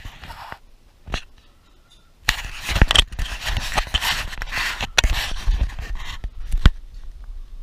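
Handling noise from a small camera gripped in the hand: fingers rubbing and scraping on its body right over the microphone, with a click about a second in. From a little past two seconds comes a long stretch of loud rubbing and scraping broken by sharp knocks, ending in a knock.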